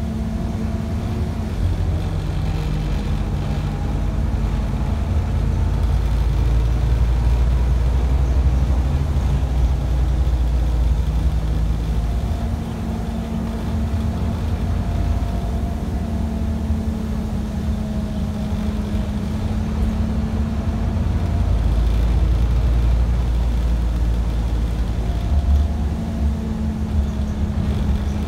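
Scania double-decker bus on the move, heard from inside the passenger saloon: a steady low engine drone and road rumble. The engine note shifts up and down a few times as the bus changes speed.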